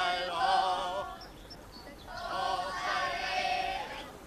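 A group of voices singing together in two phrases, with a short break about a second in.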